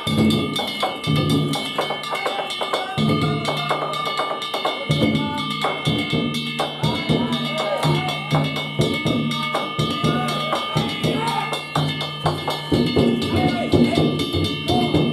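Danjiri festival-float music: a taiko drum beaten in a steady, repeating rhythm with metal hand gongs (kane) ringing over it.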